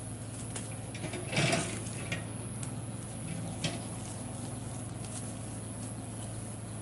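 Engine of a rice-field ditch-cutting machine running steadily with a low hum, with mud and water spattering as it throws them out to the sides. A louder splash comes about one and a half seconds in.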